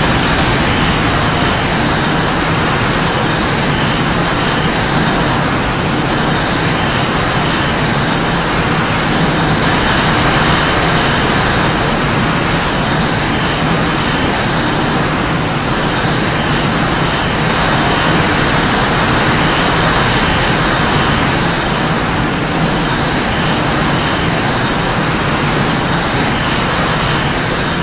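A loud, steady rushing rumble, a noise-like sound effect with no pauses.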